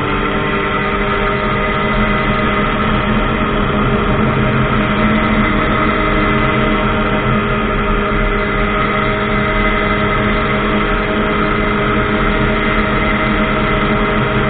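Ultralight aircraft's engine and propeller running steadily at constant power, a loud even hum of several tones with no change in pitch.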